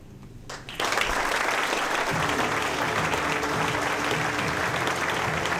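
Applause breaking out suddenly about a second in and continuing steadily, with background music with steady tones coming in under it about two seconds in.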